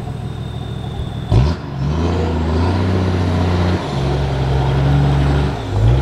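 Diesel engine of a lifted off-road 4x4 on mud tyres revving hard under load as it claws up a steep dirt bank. A loud knock comes just over a second in, then the revs climb and hold high, easing off briefly near four seconds before rising again.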